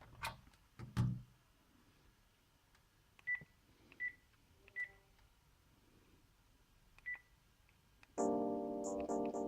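Panasonic KX-TG6811 cordless phone handset: two soft clicks of handling, then four short single-pitch key beeps a second or more apart as its buttons are pressed. About eight seconds in, a new ringtone starts playing, an electronic keyboard-like melody.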